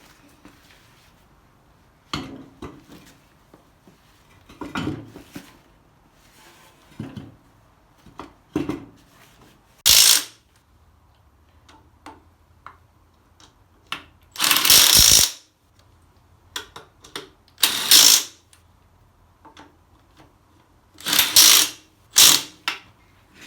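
Power tool, an impact wrench, running in five short rattling bursts as the garden tractor's rear wheel is fastened back on, the second burst the longest; quieter knocks of the wheel and fasteners being handled come before.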